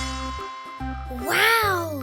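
Cheerful children's background music with a repeating bass line, and a voice exclaiming "Wow!" near the end.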